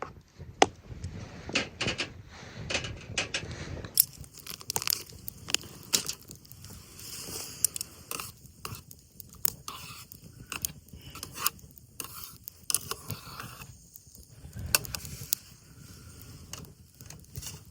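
Irregular light clicks, taps and scrapes of utensils against a pot or bowl while ramen is dished up and topped, with a change in the sound about four seconds in.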